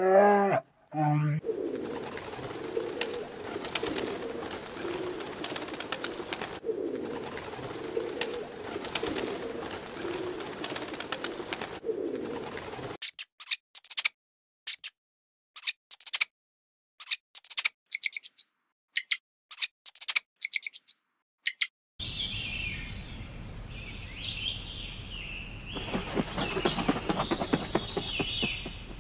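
Bird calls: a run of low calls repeated about once a second for roughly eleven seconds, then a string of short high chirps with silent gaps, then higher calls over a steady background hiss, with abrupt cuts between them.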